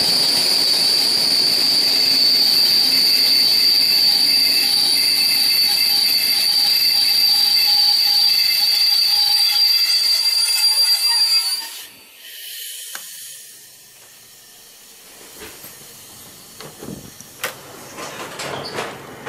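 Passenger train's brakes squealing with a steady high whine over the running noise as it slows along a station platform, cutting off about twelve seconds in as the train comes to a stop. After that the carriage is quiet apart from a few short knocks and clicks.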